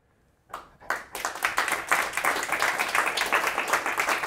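Audience applause: a first lone clap about half a second in, then many hands clapping together, quickly building into steady applause.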